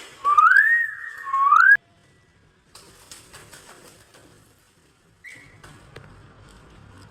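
A clear whistle that slides up, dips and rises again for about a second and a half, then cuts off abruptly. Faint rustling and a short high chirp about five seconds in follow.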